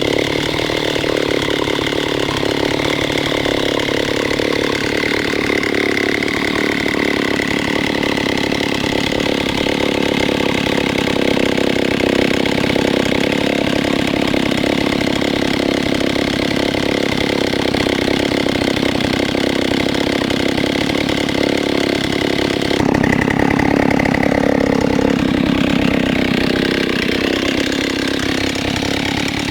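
Old Stihl 08 S chainsaw's single-cylinder two-stroke engine running steadily; about three-quarters of the way through its sound changes, then it runs on.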